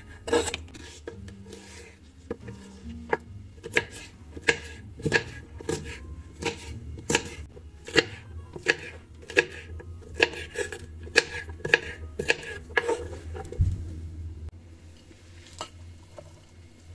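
Kitchen knife chopping long green peppers on a bamboo cutting board: sharp knocks of the blade against the wood, about one to two a second, that thin out after about thirteen seconds.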